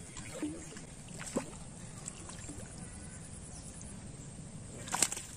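Water splashing and sloshing as a hooked wild tilapia is fought, with a few small knocks and one sharp knock or splash near the end.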